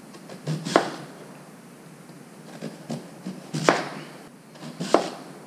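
Kitchen knife slicing through a Korean radish and knocking down onto the cutting board: three sharp chops, about a second in, past the middle and near the end, with lighter taps between.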